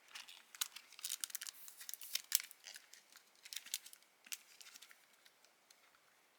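Crinkly stationery packaging and paper being handled: a quick run of small crackles and rustles that thins out after about four seconds.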